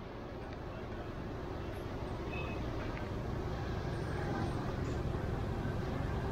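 Busy street ambience: a steady low rumble of traffic with faint chatter, slowly growing louder.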